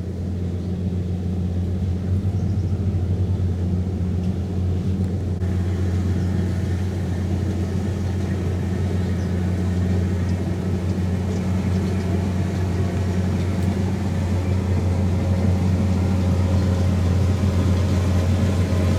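Kubota DC-70 rice combine harvester running steadily with a deep diesel hum. About five seconds in, a higher rushing mechanical noise joins and slowly grows louder.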